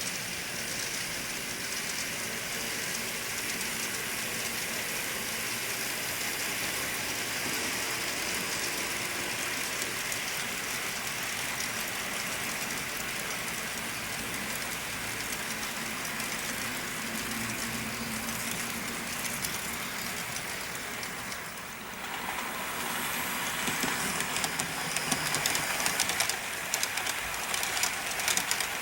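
Model train with no onboard sound running along the track: a steady hiss of its motor, gears and wheels on the rails. About two-thirds of the way through the sound changes suddenly to a louder run, full of quick, uneven clicks of wheels over rail joints.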